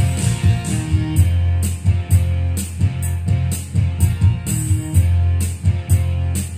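Karaoke song track playing from a Megapro Plus Piolo SD karaoke player: band music with guitar over a steady bass line and a regular drum beat.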